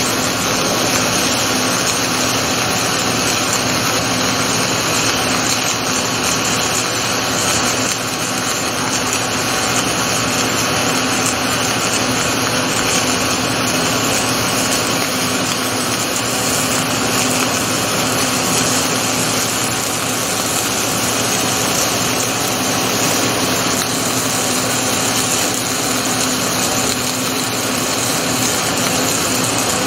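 Rotoweld 3.0 automated pipe spool welding machine running steadily, a constant hiss over a low steady hum with no breaks or changes.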